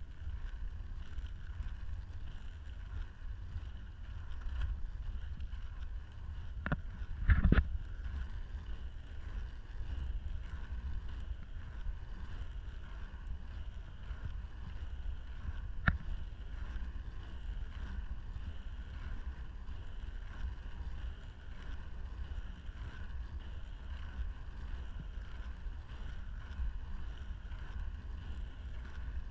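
Inline skate wheels rolling on an asphalt path: a steady low rumble. About seven seconds in there is a short cluster of sharp knocks, the loudest sound, and a single sharp click comes around sixteen seconds in.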